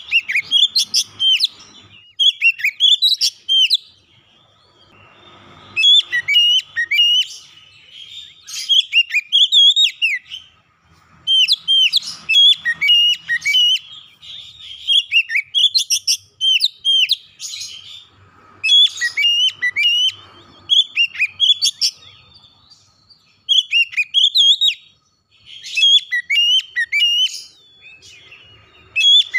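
Oriental magpie-robin singing: fast runs of whistled and chirping notes that sweep up and down. They come in phrases of a second or two, with short pauses between.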